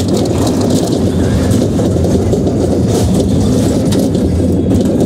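Tilt-A-Whirl ride running, heard from aboard a spinning car: a loud, steady, low rumble of the rolling cars and platform machinery.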